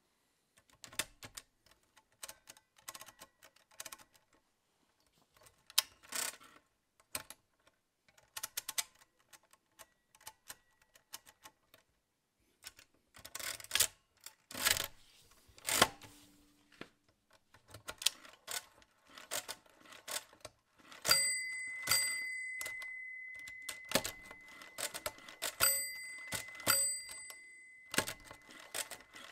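1950s Walther WSR 16 pinwheel mechanical calculator being worked: setting levers, register and crank clicking and clacking, with a few louder clacks about halfway in. About two-thirds of the way in its bell rings with one long, slowly fading tone, struck again a couple of times near the end: the underflow warning, signalling that the subtraction has gone below zero.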